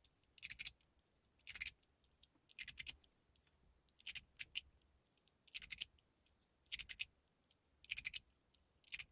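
Gao Rich Fortune magnetic slider fidget, with an aluminium body, a ball-and-track centre piece and magnets on its outer edges, pushed back and forth over and over. Each stroke gives a crunch of sharp, quick clicks, about once a second.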